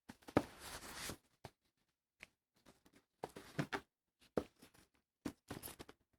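Hands handling unboxing packaging up close: a second-long rustle and slide at the start, then scattered taps, clicks and short rustles of cardboard and plastic.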